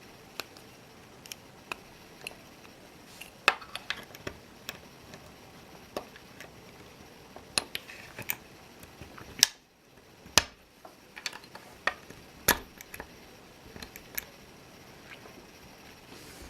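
Hobby knife prying and scraping the support raft off a 3D-printed plastic bracket: irregular sharp clicks and snaps as the raft is pried loose.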